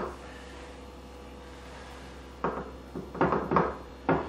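Quiet room hum, then from about two and a half seconds in a handful of short knocks and clatters of a ceramic baking dish on a granite countertop as bacon-wrapped turkey is pressed and tucked into it.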